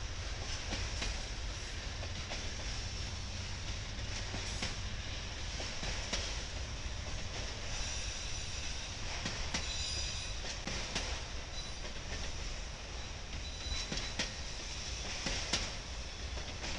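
Freight train of autorack cars rolling past, a steady rumble of steel wheels on rail with scattered rail-joint clicks. A brief high wheel squeal comes in about eight seconds in and fades out about three seconds later.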